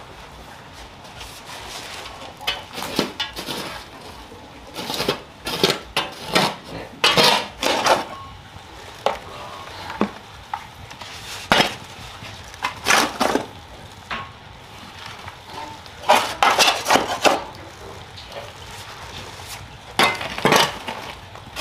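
Irregular clatter of clinks and knocks from hard objects being handled, in bursts every few seconds with quieter stretches between.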